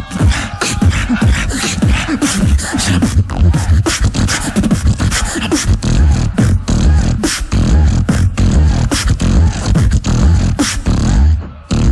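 Live competition beatboxing through a stage microphone: a fast, dense rhythm of deep kick-drum bass hits and sharp snare and hi-hat clicks made with the mouth, stopping just before the end.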